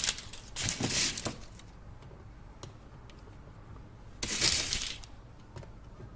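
Chocolate being handled and stacked: two bursts of crinkling and crackling, about a second in and again about four seconds in, with a few light clicks between.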